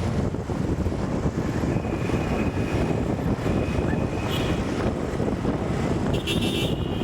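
Steady rumble of wind buffeting the microphone, mixed with road and traffic noise, from travelling along a road in a moving vehicle.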